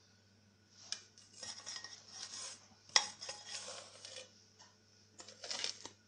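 A plastic scraper scraping melted chocolate out of a metal bowl, in uneven bursts of scrapes and clinks, with one sharp knock of the bowl about three seconds in. A faint steady hum runs underneath.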